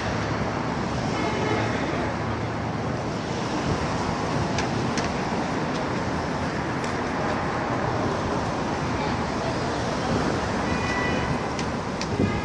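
Busy city street ambience: a steady wash of road traffic noise, with a few faint sharp clicks and brief, faint higher tones.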